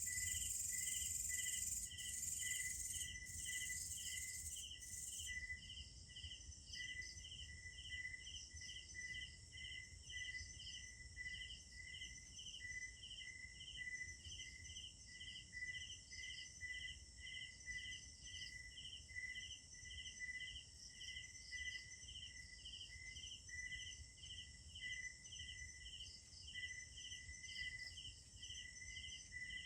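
Night insects: crickets chirping in a steady, even rhythm of about two pulses a second, layered with a continuous tone. A louder, high shrill buzz from another insect runs over them and cuts off about five seconds in.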